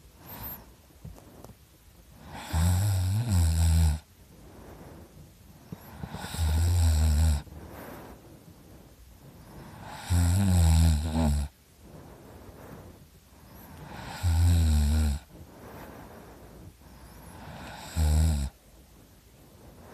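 A person snoring in deep sleep: five loud snores about every four seconds, each lasting around a second, with quieter breathing between.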